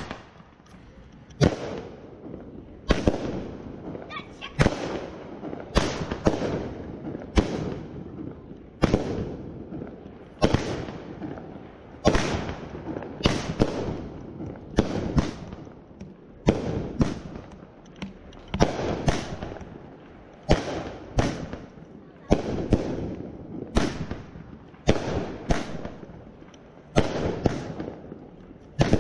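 A multi-shot aerial firework firing shot after shot, about one every one and a half seconds. Each shot is a sharp bang that trails off over about a second.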